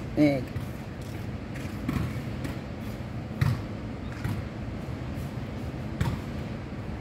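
Steady low outdoor background rumble, with a few faint knocks about two, three and a half and six seconds in.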